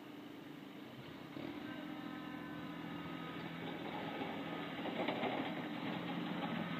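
An engine running steadily with a hum that grows louder about a second and a half in and keeps rising.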